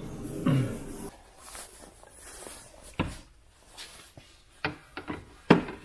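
Scattered knocks and clunks as a diesel parking heater unit is handled and pushed up against the van's underbody, a few sharp hits spread out with the loudest near the end.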